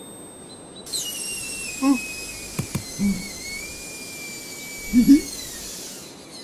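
Air whistling out of a car tyre as it deflates: one long, high squeal that slides down in pitch over the first second or two, then holds until it cuts off near the end. Short vocal grunts come about two seconds in, again about three seconds in, and a louder one about five seconds in, with a couple of clicks between them.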